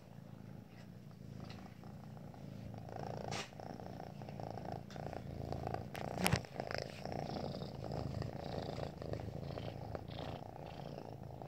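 Domestic cat purring steadily close to the microphone, with a brief knock about six seconds in.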